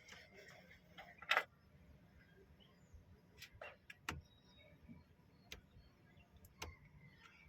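Faint scattered clicks and taps, about half a dozen, with one sharper knock about a second and a half in, over a low steady hum.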